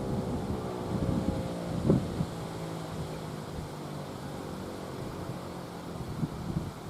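Federal Signal 508-128 outdoor warning siren winding down at the end of its alert test, its slowly falling tone fading out over the first few seconds, with wind buffeting the microphone throughout.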